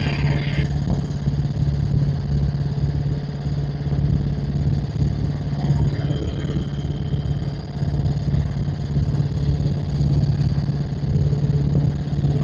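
Helicopter in flight, heard from inside the cabin: a steady, unbroken drone of engine and rotor with a constant low hum.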